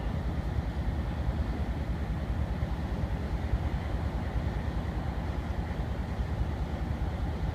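MLW/Alco 251F 16-cylinder diesel prime mover of an LRC locomotive running steadily with a rapid, low exhaust beat, still warming up after a cold start.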